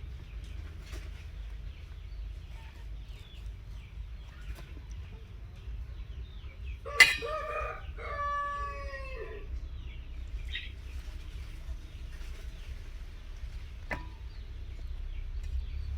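A rooster crowing once about seven seconds in, one long call that steps in pitch and lasts a couple of seconds, just after a sharp click. A low steady rumble runs underneath, with another click near the end.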